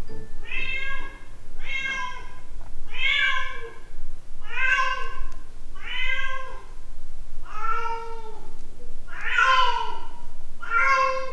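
A British Shorthair Munchkin cat shut behind a closed door, meowing about eight times, roughly one call every second and a half, each call rising and then falling in pitch: a confined cat demanding to be let out.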